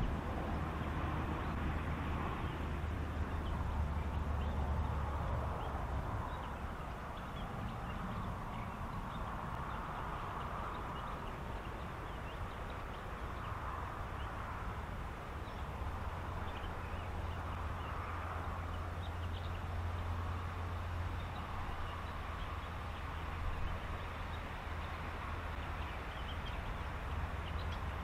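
Reed-bed ambience: a continuous chorus of animal calls with many short high chirps and ticks, swelling and fading every few seconds, over a steady low rumble.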